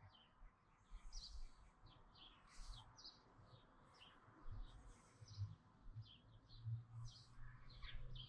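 Near silence with faint birds chirping in the background, short high chirps repeating throughout, and a few soft low bumps.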